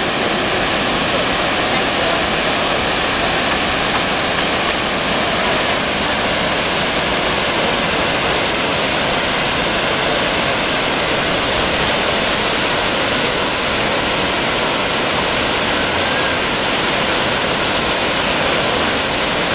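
Water pouring over a low concrete dam spillway and gushing through a side channel into churning whitewater: a steady, even rushing noise that holds at the same level throughout.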